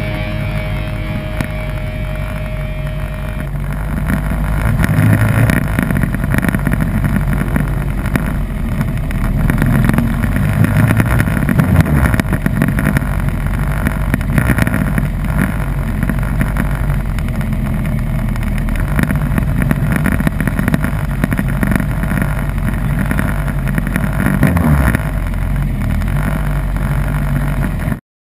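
Yamaha R1 inline-four sportbike engine at low road speed, heard through an onboard camera, swelling and easing with the throttle several times. The sound cuts off abruptly near the end.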